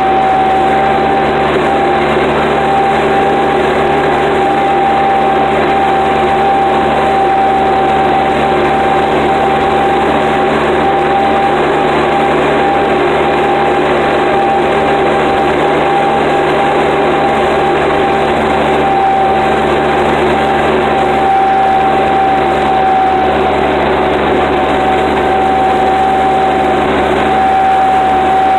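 Tractor diesel engine running steadily while discing, heard from inside the cab, with a constant whining tone over the engine noise.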